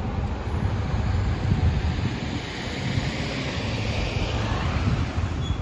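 Outdoor street noise: a steady wash of traffic with wind rumbling on the microphone.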